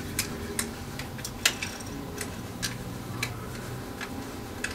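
Light, irregularly spaced mechanical clicks from the printer's mechanism being turned back by hand, over a faint low hum.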